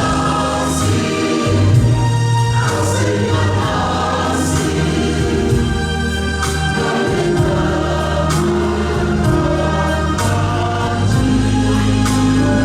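Choir singing a gospel hymn in held, sustained chords over a steady low bass.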